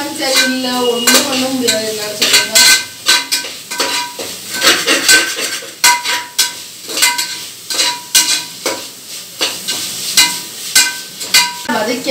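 A metal ladle stirring and scraping around an aluminium pot, with many irregular clinks and scrapes against the metal. Under it, the sizzle of an onion, ginger-garlic and tomato masala frying in oil.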